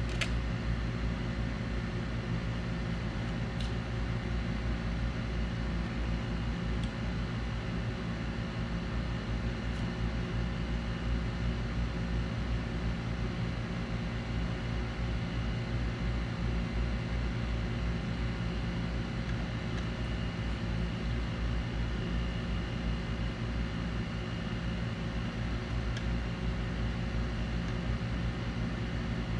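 A fan running with a steady low hum and hiss, with a few faint ticks over it.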